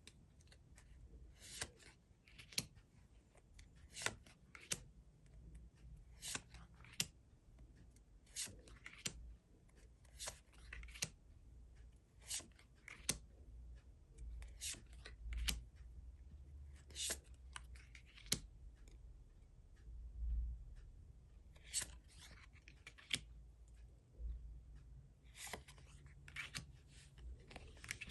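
Pokémon trading cards and foil booster packs being handled: irregular short, crisp clicks and rustles, about one or two a second, as packs are opened and cards flicked through.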